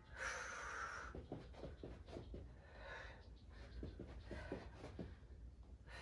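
A woman breathing hard through her mouth while exercising, with a strong breathy exhale in the first second and softer breaths after it. Light taps of her feet shuffling on the floor are heard throughout.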